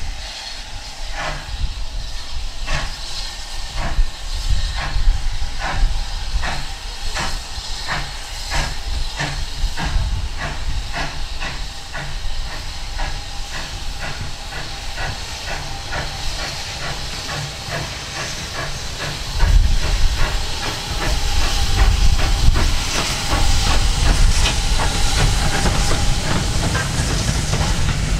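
Steam locomotive working a train, its exhaust beats coming faster and faster over a steady steam hiss. Later a low rumble joins in and the hiss grows louder.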